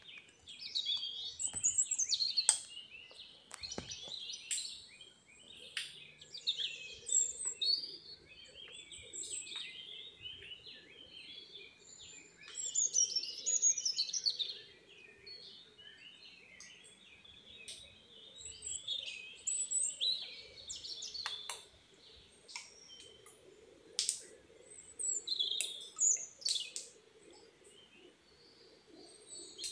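Many wild birds chirping and calling over one another, in bursts of quick high chirps and sweeping calls that swell and fade, with a few sharp clicks in between.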